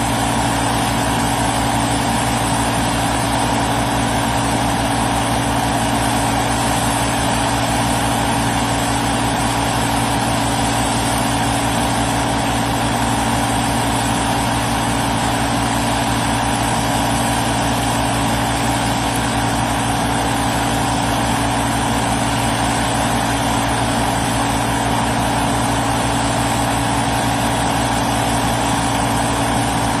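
Skid-steer loader's engine running steadily at a constant speed, a low drone.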